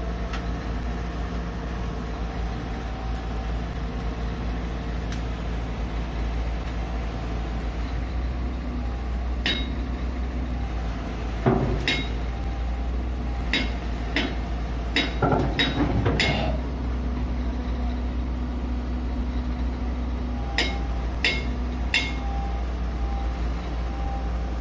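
A heavy diesel engine idling steadily, with a scattering of sharp metallic clanks and knocks. The knocks start about ten seconds in, come thickest a few seconds later, and return three times near the end.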